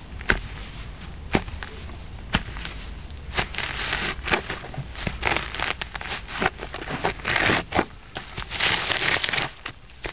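Adidas Copa Mundial football boots stomping and trampling weeds: a few sharp snaps about a second apart, then a denser run of crunching and rustling of stems and leaves underfoot.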